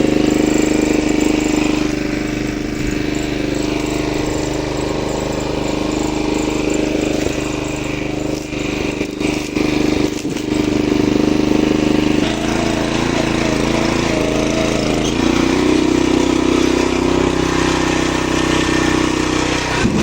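Small engine of a motorized fruit-hauling machine running steadily on an oil palm estate, its note shifting about twelve seconds in and again a few seconds later.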